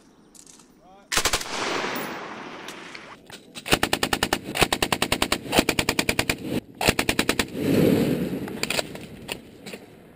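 M249 and M240 belt-fed machine guns firing on a range. A short burst comes about a second in. From about four seconds in there are long fully automatic bursts at roughly ten shots a second, with a brief break near seven seconds and a few last shots near the end.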